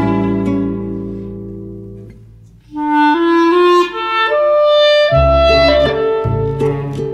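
Instrumental music: a held chord fades away, then a melody of short stepped notes enters about three seconds in, with low bass notes joining about two seconds later.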